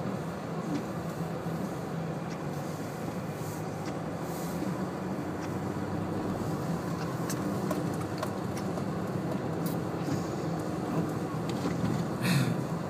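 All-wheel-drive car driving slowly through deep snow, heard from inside the cabin: a steady low engine and tyre hum with a few small ticks and a brief brighter noise near the end.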